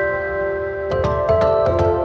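Background music: soft, ambient-style instrumental with held notes and gently struck or plucked notes.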